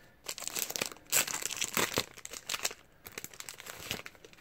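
Packaging crinkling and rustling as it is handled while trading cards are taken out, in uneven crackly bursts with short pauses about one and three seconds in.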